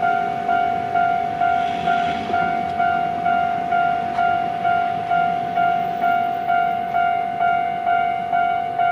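Electric bell of a Japanese railway level crossing ringing, with regular struck clangs just under two a second, each ringing out before the next.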